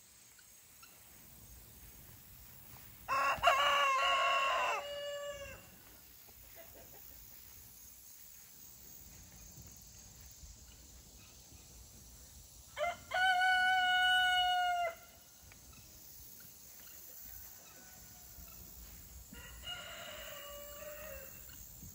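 Roosters crowing: two loud crows, one about three seconds in and one about thirteen seconds in, each lasting about two seconds, then a fainter crow near the end.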